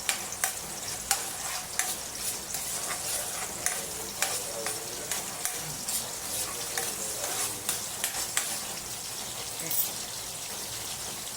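Food sizzling in hot oil in a pan while being stirred, with frequent irregular sharp clicks of the utensil striking the pan.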